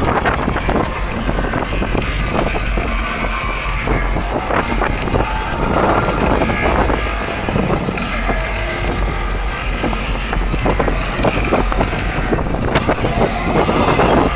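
Boat engine running steadily as the boat cruises across open water, with wind buffeting the microphone.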